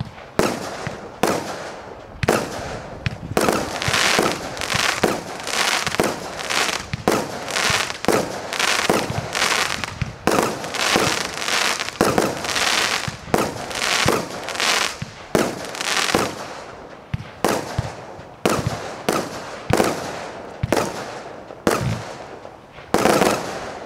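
Zeus Fireworks 'Icon' 209-shot compound firework cake firing: a rapid run of launches and bursting shells, more than one a second, with hiss between the bangs. The last and loudest shot comes near the end as the cake finishes.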